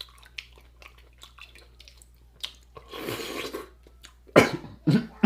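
Close-up eating of king crab legs: small clicks and crackles of shell, a wet slurping patch about three seconds in, then two short loud throat sounds near the end.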